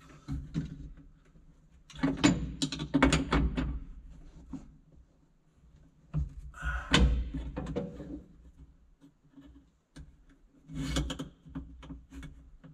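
Metal clinks and knocks of a wrench working a nut on the steel dashboard panel of a Tucker Sno-Cat, in three spells of quick clicking with pauses between them.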